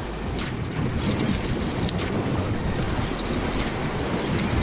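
Wind rumbling on the microphone over surf washing against breakwater rocks, a steady noise with a few faint clicks.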